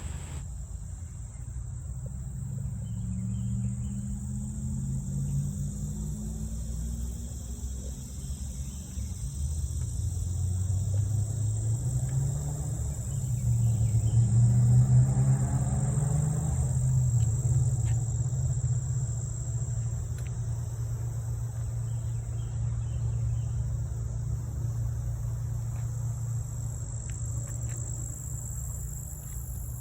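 A steady, high-pitched chorus of insects, with the low rumble of a passing motor vehicle that swells to its loudest about halfway through and then eases off.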